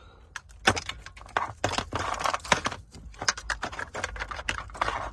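Plastic wiring-harness plugs and cables being handled: an uneven run of quick clicks, taps and rustles.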